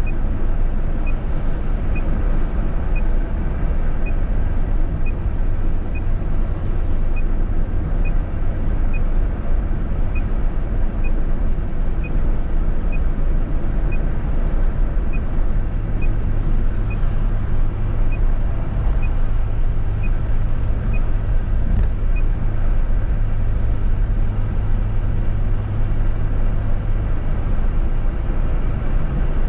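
Steady road and engine noise of a moving road vehicle, strongest in the low range and deepening a little about halfway through. A faint regular tick sounds about once a second throughout.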